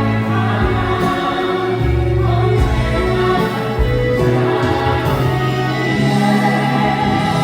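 Several voices singing together over a live instrumental accompaniment, with sustained notes and a steady bass line.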